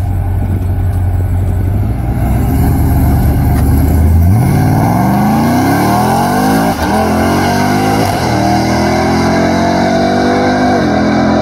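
Modified Ram 1500 TRX pickup's supercharged 6.2-litre V8 running at a steady low rumble, then launching about four seconds in and accelerating hard. Its pitch climbs and drops back at each of about three upshifts.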